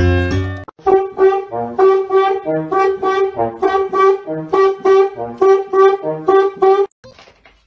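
Background music: a bouncy brass tune of short, quick notes, which cuts off abruptly near the end. Before it, the last moment of a different chiming tune plays.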